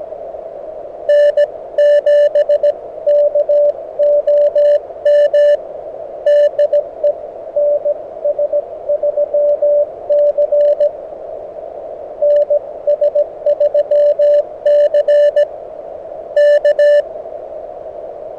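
Morse code from a QRP CW transceiver: a tone of about 600 Hz keyed on and off in groups of dots and dashes, over a steady hiss of shortwave band noise. The code runs in bursts with short gaps, and is fainter for a few seconds in the middle.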